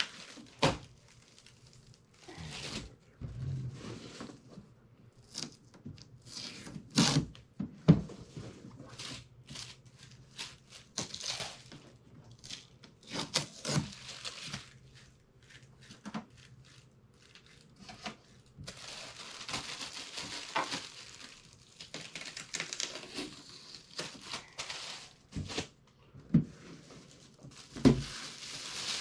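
Packaging being handled and pulled off a new dehumidifier: crinkling, rustling and tearing, with many scattered knocks and thuds.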